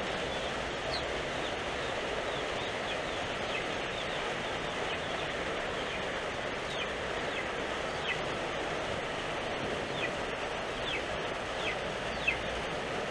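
Steady heavy rain, with chicks peeping every second or so in short cheeps that fall in pitch. The loudest cheep comes near the end.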